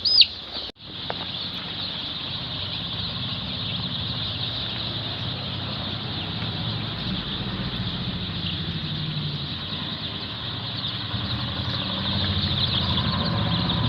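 A crowd of chicks peeping together in a dense, steady chorus of high chirps over a low steady hum.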